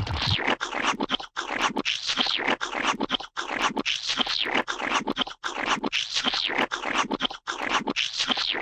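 Gooey, wet squelching sound effect: a dense, sticky squish full of small clicks, repeating in a loop about every two seconds.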